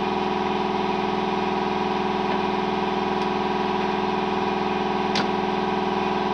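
A machine running steadily, giving an even buzzing hum of several steady tones that does not change. There is a single short click about five seconds in.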